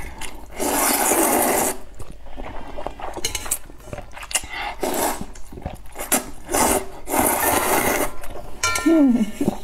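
A person slurping rice noodles from a spicy broth in a run of noisy sucks, the longest about a second in, with small wet clicks between them and a brief voiced sound near the end.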